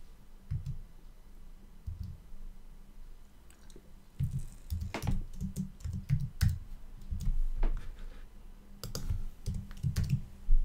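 Typing on a computer keyboard: irregular keystrokes in short runs, with soft thumps of the keys.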